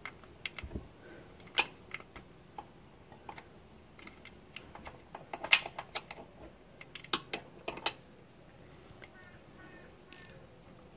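Metal 8mm spanner clicking and tapping on the small bolt of a crankshaft position sensor as the bolt is turned a few more turns to loosen it. The clicks are sharp and irregular, with a small cluster about halfway through.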